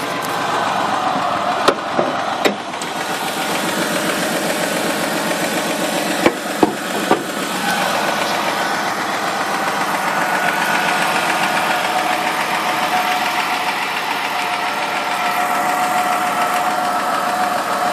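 2002 Ford Escape engine idling, the idle the owner reports as rough, with a cylinder 1 misfire code stored. A few sharp clicks sound about two seconds in, and a few more between six and seven seconds in.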